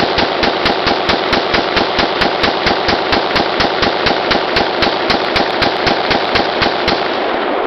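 Rifle fired in a long, rapid string of shots, about five a second without a break. The barrel is heating until it smokes.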